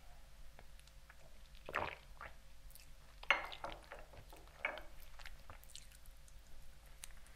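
Close-miked mouth sounds: wet lip smacks and tongue clicks while tasting. There are three louder smacks about a second and a half apart, with small clicks between.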